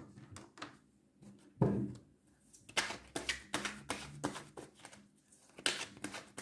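Scattered light clicks and taps, with one louder knock about a second and a half in and small clusters of taps later on.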